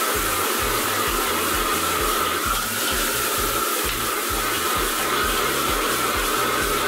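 Commercial gas wok burner running at full blast with a steady roar and a high-pitched hum, while leafy greens sizzle and are tossed with a metal ladle in a carbon-steel wok.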